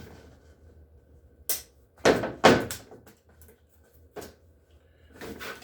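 A zip-tied chainsaw box being opened by hand: a sharp click, then a loud rough scraping of cardboard and packaging about two seconds in, and a few lighter knocks.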